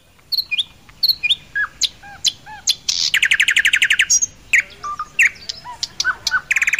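Birdsong: a quick series of short whistled chirps and down-curving notes, broken by a rapid trill lasting about a second around three seconds in and another near the end.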